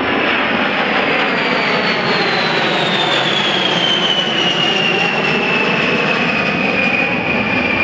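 Boeing B-52H Stratofortress's eight TF33 turbofan engines in a flyby: a loud, steady jet rush with a high whine that slides down in pitch as the bomber passes overhead and draws away.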